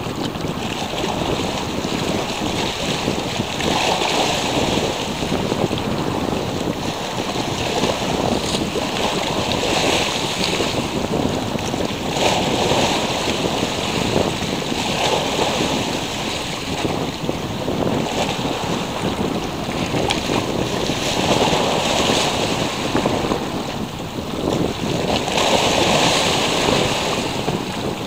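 Sea waves washing steadily, swelling and easing every few seconds, with wind on the microphone.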